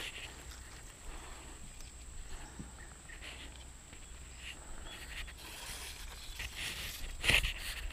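Soft rustling and handling noise of clothing and a fishing rod as the rod is swung out over the water, with one sharp thump about seven seconds in. A faint steady high tone runs underneath.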